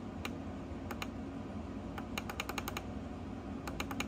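Clicking of the volume-up button on a desktop RGB computer speaker, pressed singly twice and then in two quick runs of about six clicks, turning the volume all the way up.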